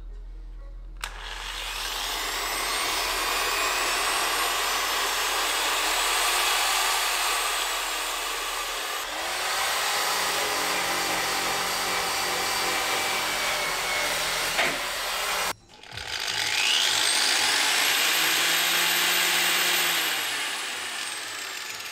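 Rotary polisher with an abrasive stripping disc scrubbing old underseal and rust off a car's steel wheel arch, a steady grinding hiss. After a brief stop about two-thirds of the way through, an angle grinder takes over, its high whine rising as it spins up and falling again near the end.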